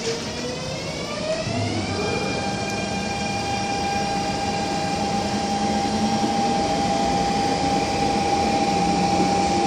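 MTR A-Train accelerating, with its traction motors and inverters whining. The whine rises in pitch over the first two seconds, then holds one steady high tone. Under it the running rumble of the train grows slowly louder.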